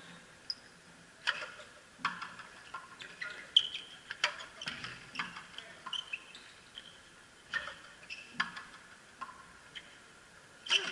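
Frontenis rally: rackets strike the small rubber ball and the ball smacks off the frontón wall and floor in sharp, irregular cracks, one every second or so. Short high squeaks of sneakers on the court floor come between the hits.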